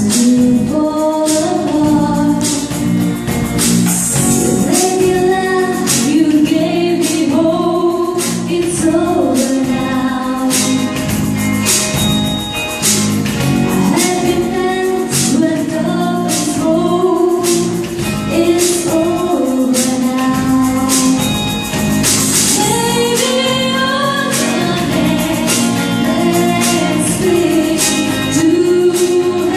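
Live band playing a pop song: a woman singing lead over electric guitar, keyboard, bass guitar and drums, with a steady beat.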